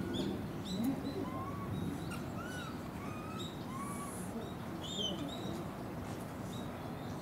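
Japanese macaques giving short coo calls: brief arched, whistle-like notes from several animals, about one a second, over a steady low background hum.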